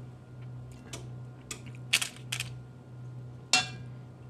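A few light clicks and taps, then a louder crackling knock about three and a half seconds in, as floured cauliflower florets are shifted around on a parchment-lined baking sheet. A low steady hum runs underneath.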